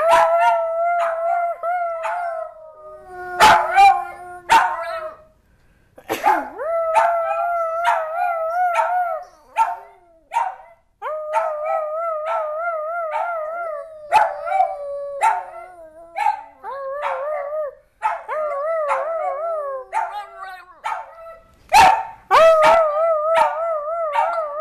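Small dog howling in long calls with a wavering pitch, one after another, broken by a few short, sharp barks.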